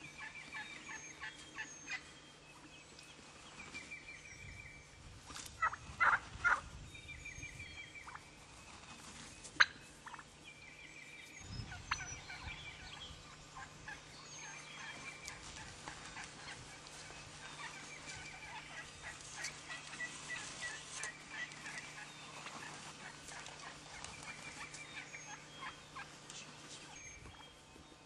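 Wild turkey gobblers gobbling close by, a rattling gobble every few seconds. A louder cluster of calls comes about six seconds in, and a single sharp click just before ten seconds.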